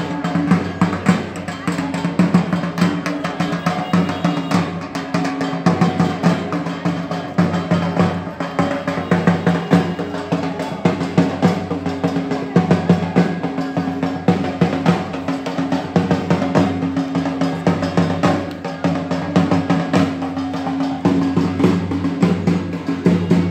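Fast, continuous drumming, dense strikes with no break, over a steady low drone of held pitches underneath.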